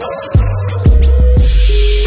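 Background music with a heavy beat: kick-drum strokes about twice a second over a deep held bass, with a rising rush of noise in the second second.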